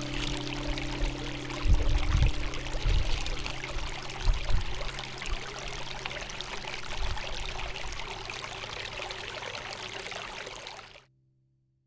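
Steady rushing outdoor ambient noise, with a few low thumps of wind on the microphone in the first half, cutting off abruptly near the end.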